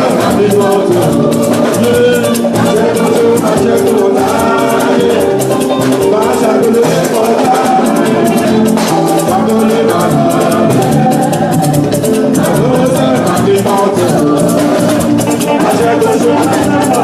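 Yoruba church praise music: voices singing over drums, with a shaker keeping a steady, fast rhythm.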